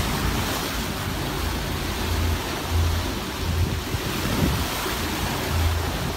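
Wind buffeting a phone microphone over the rushing and splashing of choppy, whitecapped sea, with irregular low rumbling gusts.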